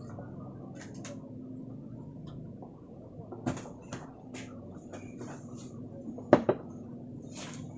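Eating from a plate of rice and chilli chicken gravy: scattered clicks and clinks against the plate over a low steady hum, with one sharp knock about six seconds in.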